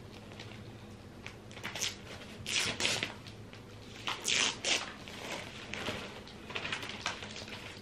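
Rustling and handling noises of paper and objects being laid out on a table, in short bursts, the loudest a few seconds in, over a faint steady hum.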